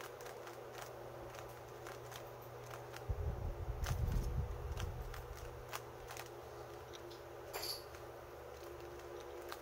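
Plastic 3×3 Rubik's cube being turned by hand: a run of quick, irregular clicks and clacks as the layers are twisted, over a steady low hum. A low rumble sets in about three seconds in and lasts about two seconds.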